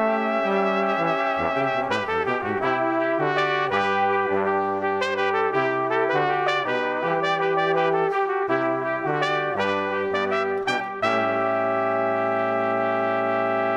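Background music led by brass, trumpet-like notes playing a melody that settles into a long held final chord near the end.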